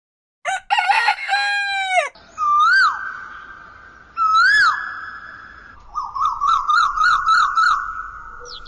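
Rooster crowing: a short falling call, then two long crows that each swell to a peak and hold a steady pitch, followed near the end by a fast wavering call of about five notes a second.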